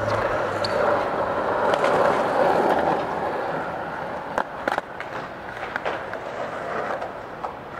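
Skateboard wheels rolling over smooth concrete: a steady rumble that fades after about three seconds, with a few light clicks near the middle.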